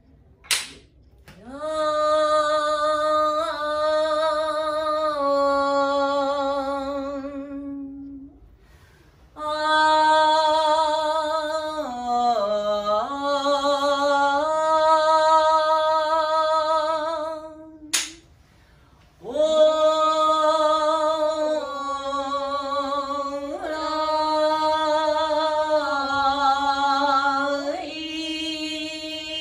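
A woman sings a shirabyoshi song unaccompanied in three long, slow phrases, each note held with a wide vibrato; her voice dips low in the middle of the second phrase. A sharp knock comes just before the first and the third phrase.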